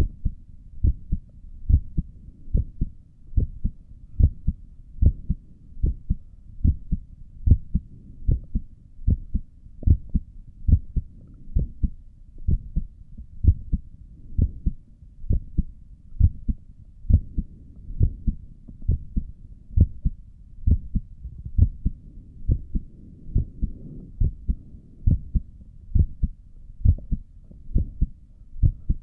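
A human heartbeat heard through a stethoscope: a steady, even rhythm of paired low thuds, lub-dub, at a resting pace.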